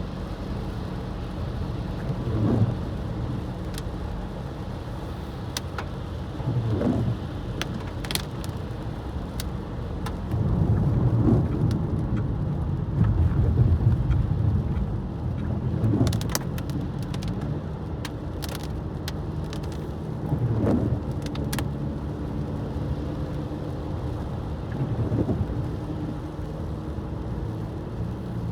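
A car driving on a wet, snowy road: steady low road and tyre rumble with scattered ticks of rain or sleet hitting the car. A short swelling sound comes back about every four to five seconds.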